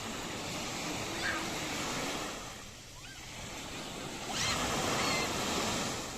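Sea waves breaking on a beach: the surf swells, eases off, then surges again more loudly about four seconds in.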